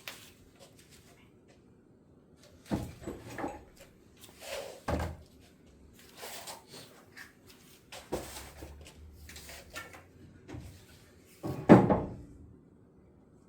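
A series of separate knocks and clunks, about a dozen of them at uneven intervals, with the loudest bang about two seconds before the end.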